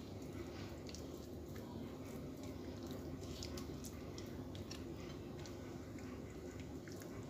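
Faint wet squishing and small scattered ticks of a hand rubbing an oily spice paste into raw vetki (Asian sea bass) steaks, over a steady low hum.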